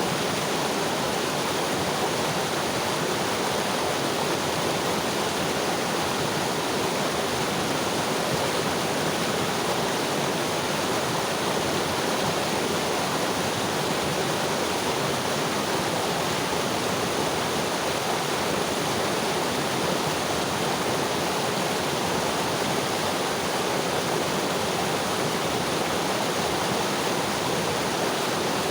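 Mountain river flowing over rocks: a steady, dense rush of water.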